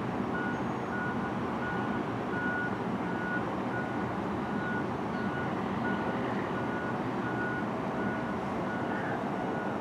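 An electronic beeper sounding a short high beep about twice a second, in the pattern of a vehicle's reversing alarm, over a steady rushing storm noise.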